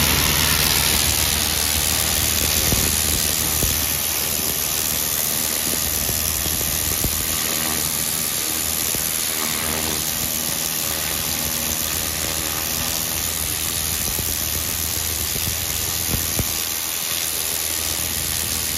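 Pressure washer blasting stripped sealer off pavers: the loud, steady hiss of the water jet striking the stone, over the steady hum of the machine running underneath.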